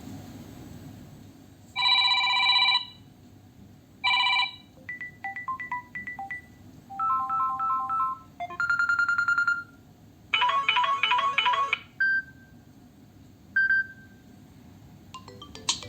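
A run of short electronic ringtone and notification melodies from a Samsung Galaxy A03s phone speaker, about eight different ones in turn, each lasting around a second, with brief gaps between them and two single high pings near the end.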